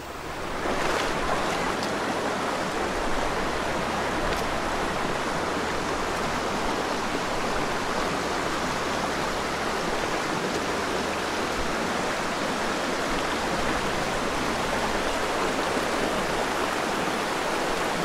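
Waterfall: a steady rush of falling water that swells in about half a second in.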